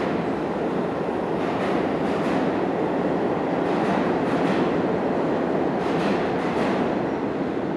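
Subway train running through the tunnel, a steady loud noise with irregular clacks of its wheels over the rail joints.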